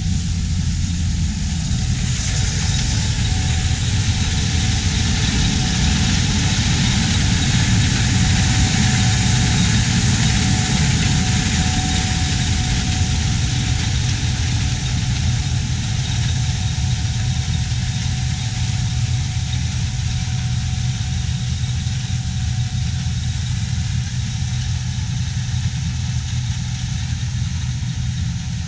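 Large diesel harvest machinery running steadily under load: a deep engine note with a broad, even hiss over it that holds the whole time.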